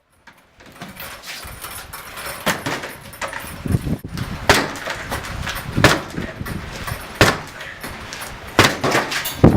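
A door being forced against its lock and chain: a series of about ten loud bangs and cracks, irregularly spaced over several seconds, as the door is struck and the fittings give way.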